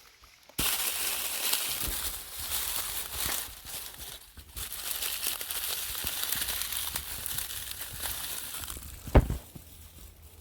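Dense crackling, crinkling noise that starts abruptly about half a second in, breaks off briefly in the middle and dies away near the end, followed by one sharp knock, the loudest sound.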